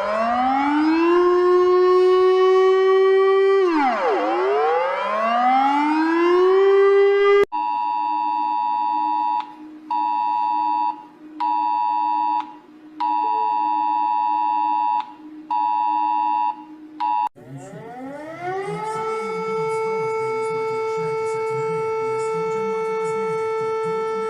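A series of emergency alert alarms: a siren winds up in pitch and holds, drops away and winds up again. Then comes a steady two-tone alert tone sounding in on-off pulses of about a second. Near the end a second siren winds up and holds a steady pitch.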